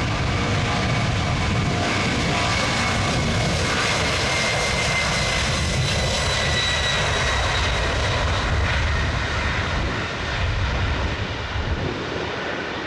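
Jet engines of an Airbus A300 freighter running on its landing rollout: a steady loud jet noise with a high whine that slowly drops in pitch. The noise eases off about ten seconds in.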